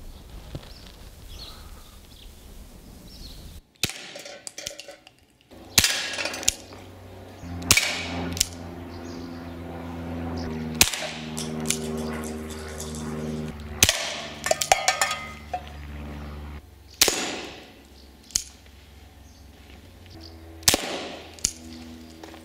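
A string of about eight sharp shots from a Walther CP99 CO2 pellet pistol, .177 calibre, spaced one to three seconds apart, with the hits on balloons and tin cans.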